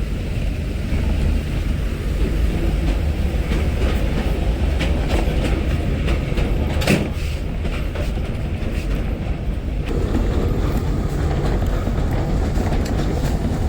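Steam train running along the track: a steady low rumble of the wheels on the rails with scattered clicks over the rail joints, one sharper clack about seven seconds in.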